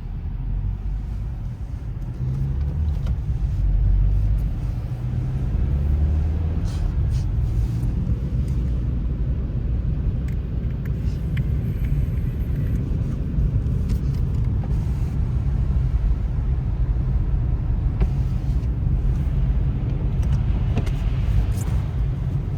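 A car driving, a steady low rumble that grows over the first few seconds and then holds.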